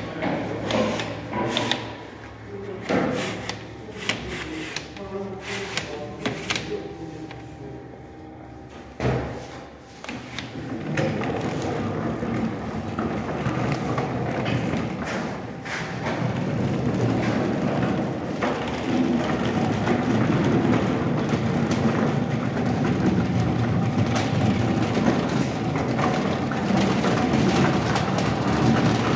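Metal baking trays knocking and clicking in a wheeled bakery rack. About ten seconds in, a steady rumbling rattle sets in, typical of the loaded rack being rolled across a tiled floor.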